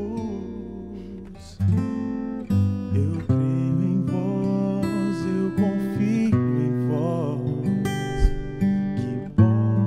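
Music: an acoustic guitar strumming chords. A chord fades away, then fresh strummed chords begin about a second and a half in and carry on steadily.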